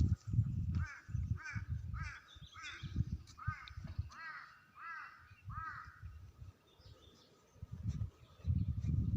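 A crow cawing in a steady series of about eight arched caws, roughly one and a half a second, which stop about two-thirds of the way through. A gusty low rumble comes and goes underneath and is loudest near the start and again near the end.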